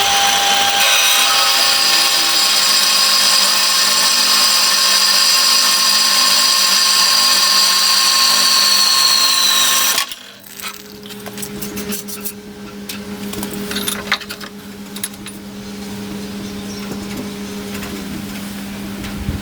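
Power saw cutting a piece off a steel bar: a loud, steady, high-pitched running for about ten seconds that sags a little in pitch and then stops abruptly, followed by a quieter, lower, steady machine hum with scattered clicks.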